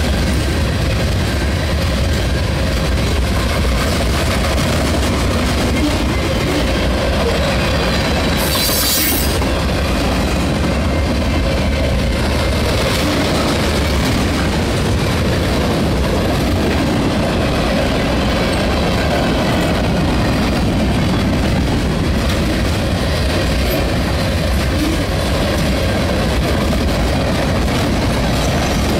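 Freight train of tank cars, boxcars and flatcars rolling past close by: a steady loud rumble and rattle of cars and wheels on the rails. There is a brief hiss about nine seconds in.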